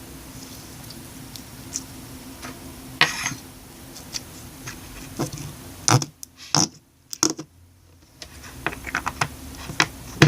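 Fluffy slime being squished and poked by hand, giving irregular sharp clicks and little popping crackles, a few louder ones about 3 s in, around 6 to 7 s, and at the very end.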